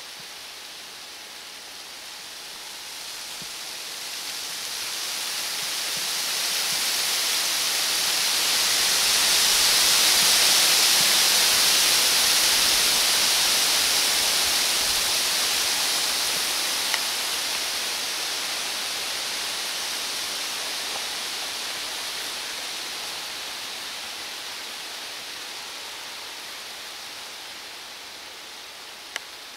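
Wind hissing through aspen leaves, swelling over several seconds to a peak and then slowly dying away.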